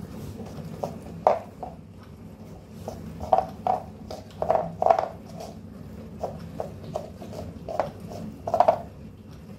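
A cat licking out an empty paper ice-cream tub on a tiled floor: a string of short, irregular tapping and scraping sounds as its tongue and face work inside the tub and nudge it across the floor.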